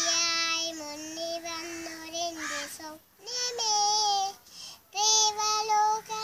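A young girl singing a Malayalam song solo, with no accompaniment: a long held note, a short breath about three seconds in, then two more sung phrases.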